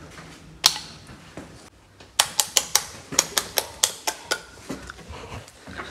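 Wall light switches being flicked off one after another: a single click, then a quick run of about a dozen clicks over some two and a half seconds.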